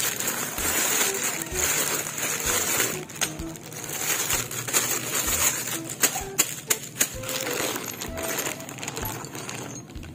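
Plastic shipping pouch and a bag of small plastic parts crinkling and rustling as they are handled. A few sharp clicks come about six to seven seconds in, and background music plays throughout.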